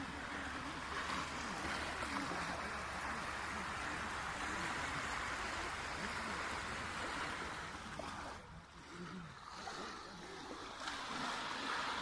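Small waves breaking and washing up a sandy beach in a steady rush of surf, easing off briefly about eight and a half seconds in before building again.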